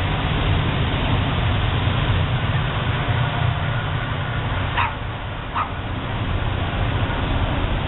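Several leashed dogs barking and yipping, with two short sharp yips about five seconds in, over a steady low rumble.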